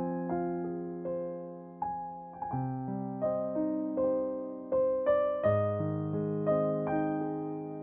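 Slow piano music: single melody notes over held low chords that change every few seconds.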